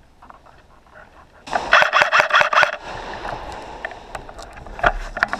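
Airsoft replica rifle firing a rapid burst of closely spaced shots, starting suddenly about a second and a half in, followed by scattered clicks and rustle.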